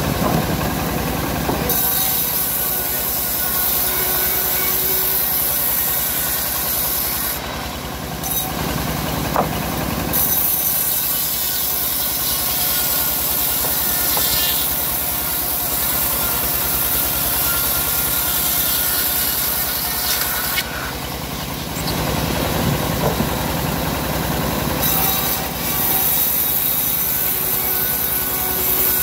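Homemade band sawmill ripping a teak log lengthwise: the blade hisses through the wood in three long cuts, with short breaks between them where the sawmill's drive engine keeps running steadily.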